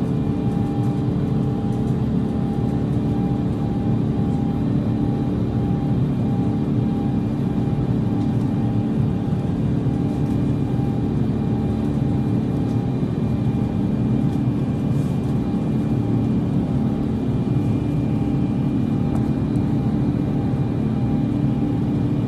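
Airbus A350 in flight, heard from inside the cabin by the wing: the steady low drone of its Rolls-Royce Trent XWB turbofan engine and airflow, with a few steady hums above it and a faint tone pulsing on and off.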